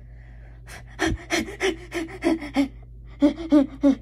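A child's voice making a rapid string of short non-word vocal sounds, in two runs: the first starting about a second in, the second near the end.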